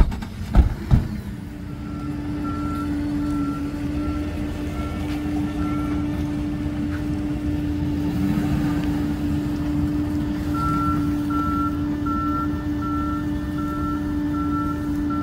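Truck's reversing alarm beeping about twice a second over the steady hum of its running engine, in two spells with a pause of a few seconds between them. A couple of sharp knocks right at the start.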